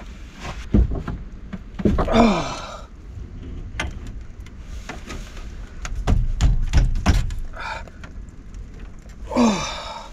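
Scattered metal knocks and clunks of pliers on a fitting and the pipework of an unvented hot-water cylinder while a stubbornly tight fitting is being forced undone, with a few heavier thumps.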